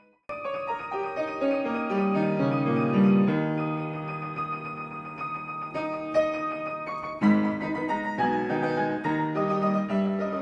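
An inexpensive Yamaha upright piano played quickly: a dense run of notes over held bass notes, coming in loudly just after the start, with a new loud chord about seven seconds in.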